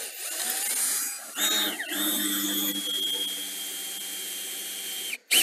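Power drill driving a screw: a steady motor whine that dips in pitch and picks up again about one and a half seconds in, then runs evenly and stops near the end as the screw snugs up.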